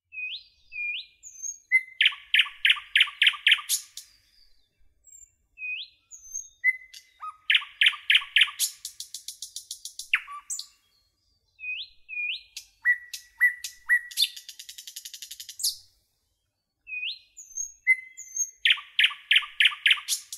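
A songbird singing four phrases a few seconds apart. Each phrase opens with short rising notes, then a quick run of loud repeated notes, and twice it ends in a fast, high trill.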